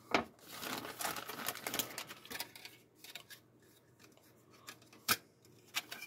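A clear plastic parts bag is slit open with a hobby knife and handled, crinkling and rustling for about two seconds, then quieter. Sharp clicks come at the start and twice near the end.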